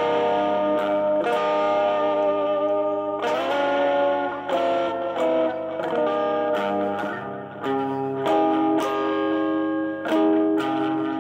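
Electric guitar played solo: held notes and chords that change every second or so, with a note bent upward about three seconds in.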